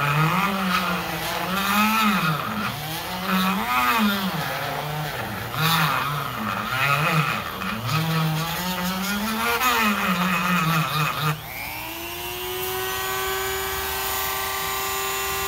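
A handheld rotary tool grinds a chromatic harmonica slider with a grinding wheel. Its motor pitch sags and recovers again and again as the wheel is pressed into the part. About 11 seconds in the wheel comes off the work, and the motor rises to a steady, higher free-running whine.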